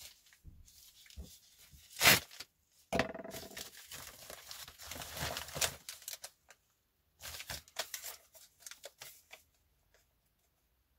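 A white postal mailer being ripped open: one sharp rip about two seconds in, then a longer tear lasting two or three seconds. The packaging crinkles for a couple of seconds as the contents are pulled out, then it goes quiet near the end.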